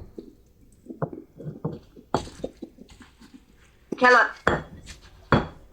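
Pestle and spoon knocking and scraping lightly in a mortar as shredded green papaya and carrot are gently pounded and tossed for som tam: a string of irregular soft knocks and clinks.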